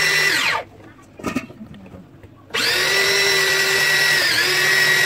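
Electric rotary drum grater shredding carrots, its motor running with a steady whine. About half a second in the motor is released and winds down, falling in pitch. It is off for about two seconds with a light knock, then is switched on again, its pitch dipping briefly near the end.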